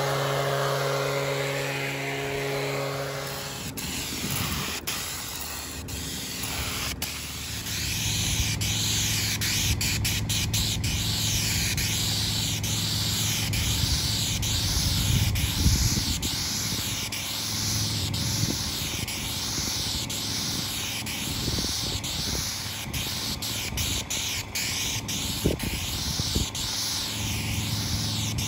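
A Stihl two-stroke leaf blower runs steadily for the first few seconds. Then comes the hiss of asphalt sealer sprayed from a hose-fed spray wand, swelling and fading about once a second as the wand sweeps back and forth, over the steady drone of an engine.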